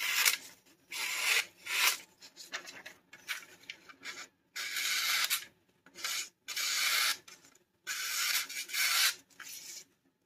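A sharp S90V steel fixed-blade knife slicing through magazine paper: a series of short papery rasps, one per cutting stroke, separated by brief pauses.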